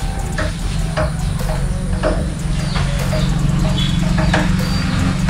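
Scattered short clicks and light knocks over a steady low hum.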